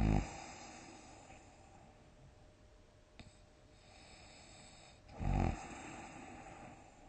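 A sleeping person snoring loudly, one snore at the very start and a second about five seconds in. Each snore trails off into a breathy exhale.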